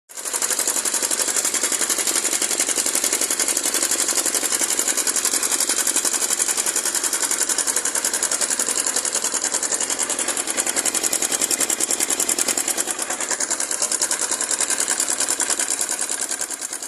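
Honda CG 150 Titan single-cylinder engine running steadily with a loud, rapid metallic clatter from the cam chain. This is the sign of a stretched, slack timing chain with worn chain guides and tensioner, which the mechanic believes is the whole cause of the noise.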